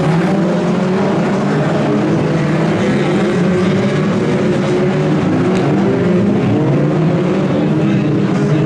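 A pack of BriSCA F2 stock car engines racing, several engines overlapping and rising and falling in pitch as the cars go round the oval.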